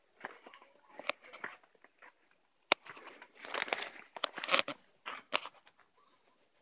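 Footsteps and rustling through dry grass and brush, the loudest stretch about halfway through, with one sharp click a little before it. A steady, high pulsing insect buzz runs underneath.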